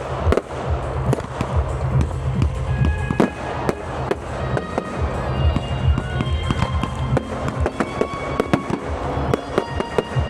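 Fireworks display: a rapid, continuous run of bangs and crackles from aerial shells, with music playing underneath.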